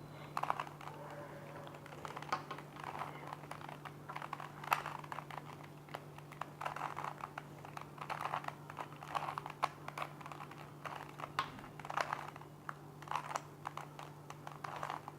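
A plastic 3x3 Rubik's cube being turned layer by layer through a solving sequence: a run of irregular clicks and rattles of the plastic pieces. A steady low hum lies underneath.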